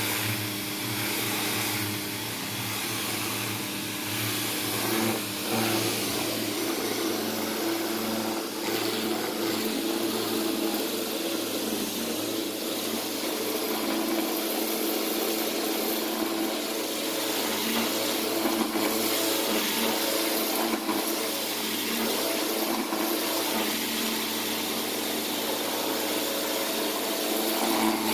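Pressure washer running steadily: its motor and pump hum under the hiss of the high-pressure jet spraying house siding.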